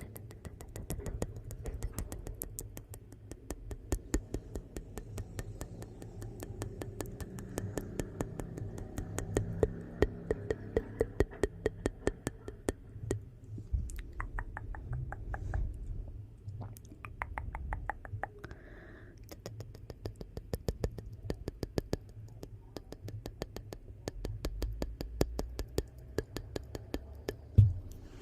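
Wood fire crackling in a fireplace: a dense run of sharp pops and snaps over a low rumble, with one louder pop near the end.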